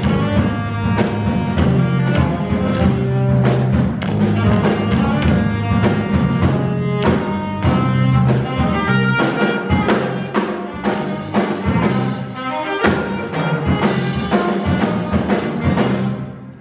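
Live jazz trio of saxophone, electric bass and drum kit playing, with the saxophone carrying the melody over a steady bass line and cymbal and drum strokes. The music stops near the end.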